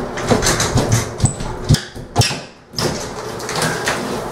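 Drywall being pulled and broken off the wall studs by hand: crackling, crumbling gypsum board with several sharp knocks.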